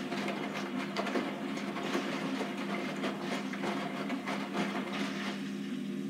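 Hotpoint front-loading washing machine tumbling on its rinse: water sloshing and wet clothes splashing in the turning drum over a steady motor hum. The sloshing eases about five seconds in.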